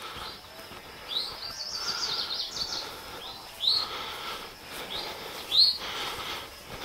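Songbirds singing: a quick run of high notes about a second in, then short, sharp high chirps about every two seconds.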